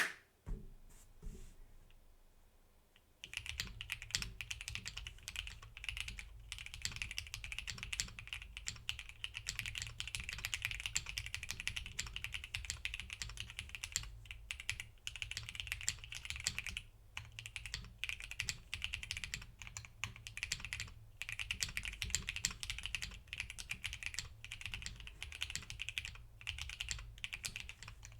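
Typing on a custom 60% mechanical keyboard with lubed and filmed Whipped Kailh Cream switches, a polycarbonate plate and GMK keycaps: a fast, steady run of keystroke clicks with brief pauses, starting about three seconds in after a couple of single key presses.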